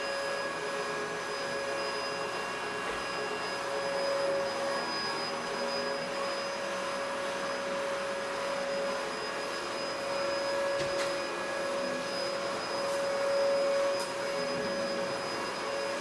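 Vacuum cleaner running steadily: an even rush of air with a steady motor whine.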